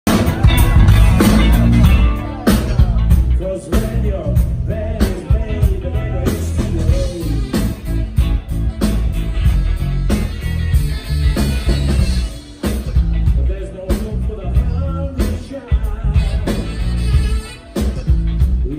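A rock band playing live: electric guitars, bass and drums, with a singer, heavy in the bass and loudest in the first two seconds.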